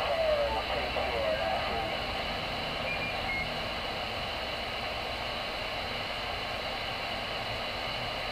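CB radio receiver on AM channel 22 putting out steady static hiss through its speaker, with a brief warbling, garbled signal in the first second or so.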